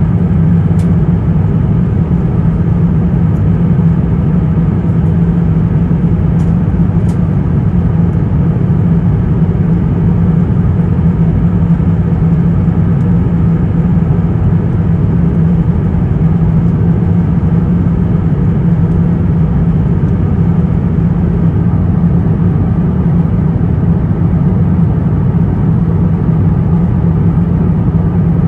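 Steady in-flight cabin noise of an Airbus A350-1000: an even rush of airflow with a constant low hum from its Rolls-Royce Trent XWB engines.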